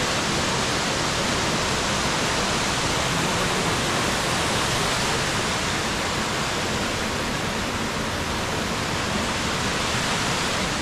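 Mountain stream rushing down a small waterfall in a limestone gorge: a loud, steady, even wash of water noise.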